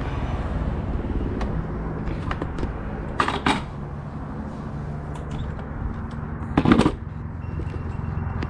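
Short rustling and clicking handling noises, two of them louder, about three seconds and about six and a half seconds in, over a steady low hum.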